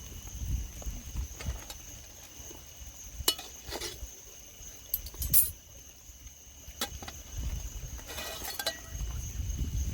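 A few scattered light clinks and taps of tableware, with a cluster of quick clinks near the end, over a steady high-pitched hum and a low rumble.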